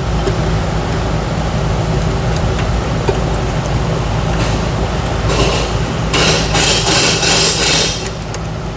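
Steady low hum underneath, with scraping and rattling from metal A/C line fittings being worked back into place: a short burst about five seconds in, then a longer stretch of about two seconds.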